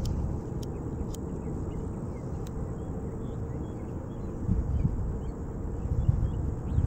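Wind buffeting the microphone as a low rumble, with a faint steady buzz of bees flying about and a few small high chirps.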